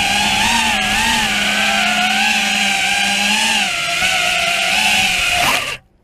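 T-Motor F60 brushless motors on a 5S battery, spinning HQ 5x4x4 four-blade props on an FPV racing quadcopter, heard from its onboard camera: a loud whine whose pitch wavers up and down with the throttle. The whine cuts off suddenly near the end as the quad comes down in the grass.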